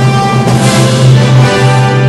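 Steady droning chord of many vuvuzelas blown together in a packed stadium, with a surge of crowd noise from about half a second in to a second and a half.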